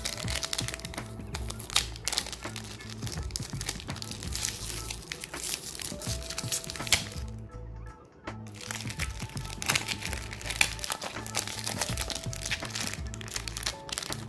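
Foil trading-card booster pack crinkling with many sharp crackles as it is worked open by hand, over background music.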